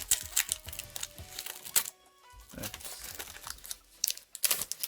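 Foil booster-pack wrapper crinkling and crackling in the hands as it is pulled and torn open with some difficulty, over background music.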